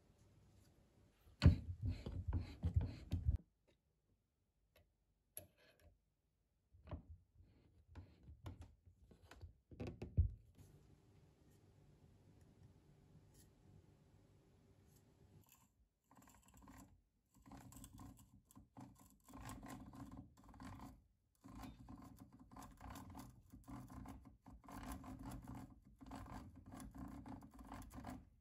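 A hand-cranked drill boring into a pine board, its bit cutting wood and its gears turning in a steady run of rasping pulses from about sixteen seconds in. Before that, a loud rattle of metal drill bits being handled about a second and a half in, and a few knocks.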